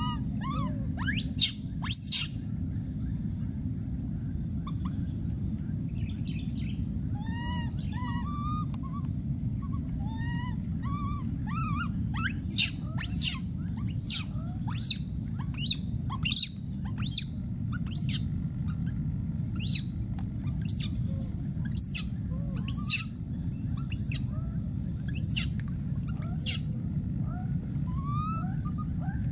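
Baby macaques calling: repeated rising-and-falling whimpering cries in the first half and again near the end, and from about halfway a run of short, very high, shrill squeaks about once a second.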